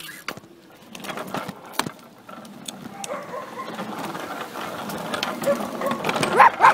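A few sharp clicks and knocks, then a dog barking in a quick run of about four barks a second near the end.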